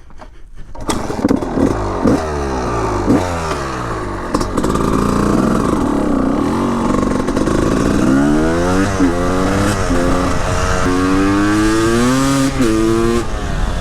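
Honda CR250 two-stroke supermoto's single-cylinder engine being ridden hard, revs climbing and falling again and again through the gears, with a sudden drop in revs near the end.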